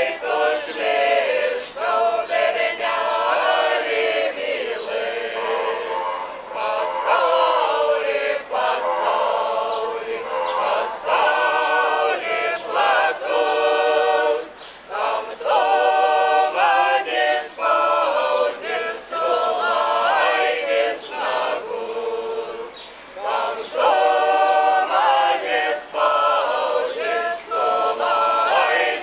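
Folk ensemble of mostly women's voices with a few men singing a Lithuanian folk song a cappella, with brief breaks between phrases.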